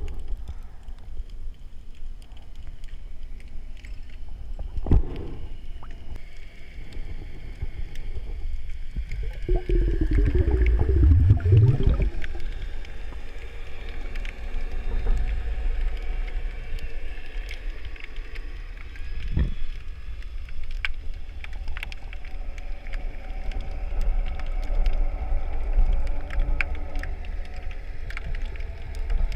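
Underwater sound through a diving camera: a steady low water noise with many faint clicks and crackles, two dull knocks, and a louder wavering, rising gurgle lasting a couple of seconds about ten seconds in.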